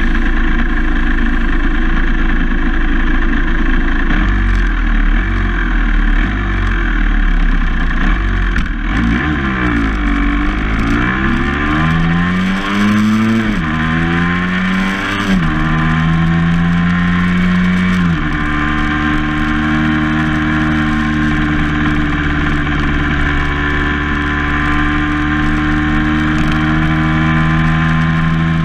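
Vehicle engine running while driving, rising in pitch as it accelerates, with two sudden drops in pitch a couple of seconds apart about halfway through as it changes gear, then holding a steady pitch while cruising. A low rumble runs underneath in the first third.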